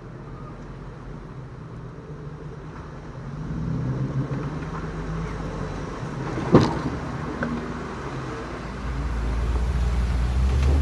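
Off-road vehicle engines running at low crawling speed over rough ground. The engine note grows louder about three and a half seconds in. There is one sharp knock about six and a half seconds in, and a heavier low rumble builds near the end.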